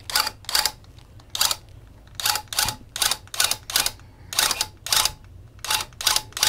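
Electric loop pile tufting gun run in short, stop-start bursts, each a fraction of a second and unevenly spaced at about two or three a second, as it punches loops of yarn into the rug backing.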